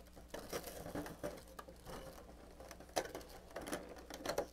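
Small cardboard advent-calendar door being picked and torn open by fingers and a tiny item in clear plastic pulled out: a run of light scratching, clicks and crinkles, with a few sharper clicks near the end.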